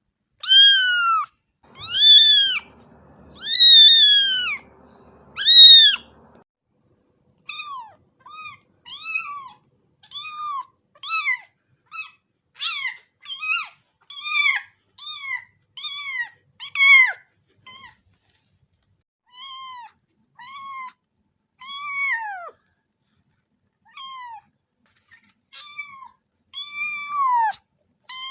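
Cat meowing over and over: high-pitched mews that rise and fall, four loud, drawn-out ones in the first six seconds, then a run of shorter, quieter ones about one a second.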